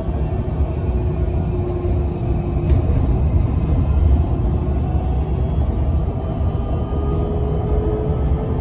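Cabin ride noise inside a Solaris Urbino 18 electric articulated bus under way: a steady low rumble of tyres and body, with a faint whine from the electric drive and a few light rattles.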